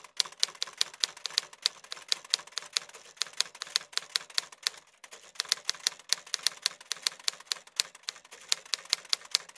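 Typewriter key-strike sound effect clicking in time with on-screen text being typed out: quick sharp clicks at about five a second, with a short break around the middle.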